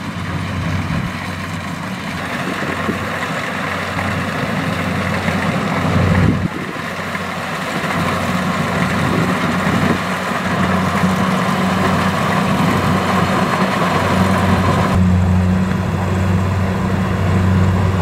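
Kubota DC-70 crawler combine harvester running under load while cutting and threshing rice. Its diesel engine gives a steady deep hum, with a dense mechanical whir from the cutting and threshing works over it, shifting abruptly a few times.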